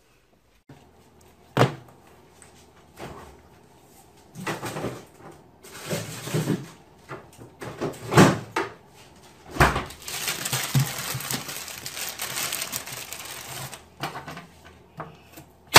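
Kitchen handling sounds: a sharp knock about a second and a half in, then scattered clunks and rustles as a fridge is opened and food is got out, with a steady hiss for about four seconds near the end.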